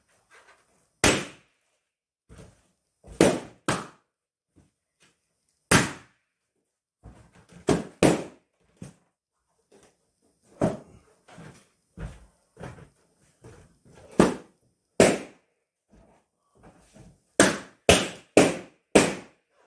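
Latex balloons being popped one after another: a dozen or so sharp, loud pops at uneven intervals, several close together near the end, with fainter crackles of handling in between.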